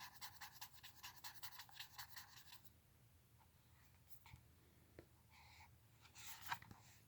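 Fingernails scratching a paper book page, a quick run of about a dozen faint strokes over roughly two seconds, then near silence.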